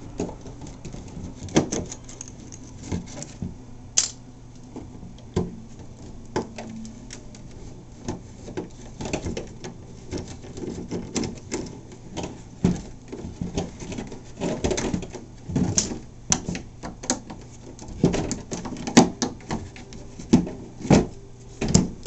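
Metal dental pick scraping and clicking in the screw heads of a plastic RC boat hull, digging out white silicone sealant: a run of irregular sharp clicks and scratches, thicker in the second half, over a faint steady low hum.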